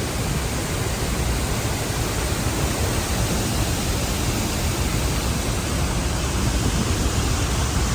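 Loud, steady rush of water pouring over the Horseshoe Dam spillway and cascading down the falls, an even roar with no breaks.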